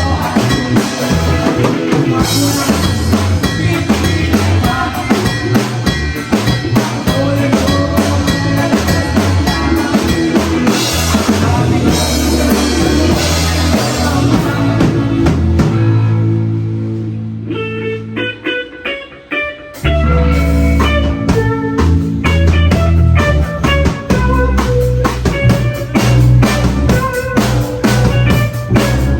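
Rock band playing live: drum kit and electric guitars. About 16 seconds in the band drops to a held low bass note and a few sparse picked guitar notes, then the full band comes back in about four seconds later.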